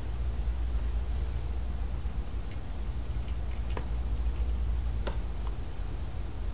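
A few faint, scattered clicks and taps from hands handling small plastic toy pieces and Play-Doh, over a steady low hum.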